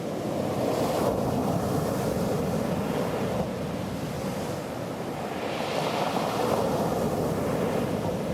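Sea waves washing onto the shore, swelling about a second in and again later, with wind buffeting the microphone.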